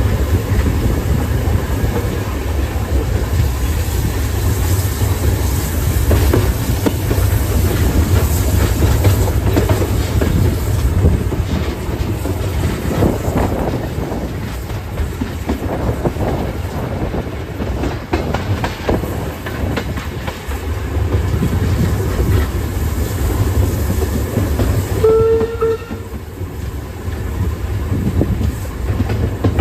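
Steam-hauled passenger train of locomotive C17 974 running along the track, heard from an open coach verandah: a steady rumble of wheels on rails with clickety-clack. A brief high tone sounds once near the end.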